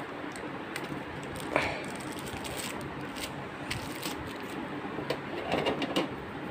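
Hands handling a SATA cable in its plastic wrapper and a 3.5-inch hard disk: scattered crinkles, scrapes and light clicks over a steady background noise. The sharpest comes about a second and a half in, and a cluster of rustling follows near the end.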